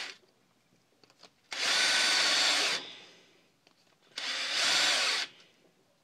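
Cordless drill spinning a wooden roll-crimp jig against the mouth of a plastic shotgun shell in two short bursts of about a second each, the friction heating and rolling the hull's edge over a slug. Small clicks between the bursts.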